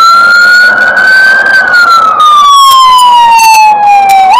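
Fire engine siren wailing loud and close. Its tone climbs slowly for about a second and a half, glides slowly down for about three seconds, then snaps sharply back up near the end to start the next cycle.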